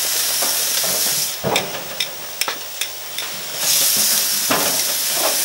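Steaks sizzling on a hot gas-grill grate during a short final sear. The sizzle fades for about two seconds in the middle, with a few sharp metallic clicks, then comes back.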